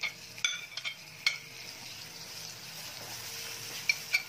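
Chopped tomatoes sizzling as they go into hot oil with fried onions and spices. A steady frying hiss, with a few light clinks against the pan in the first second and a half and twice near the end.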